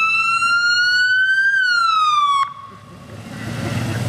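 Emergency vehicle's electronic wail siren, its pitch rising and then falling before it cuts off suddenly about two and a half seconds in; after that a low vehicle rumble grows louder.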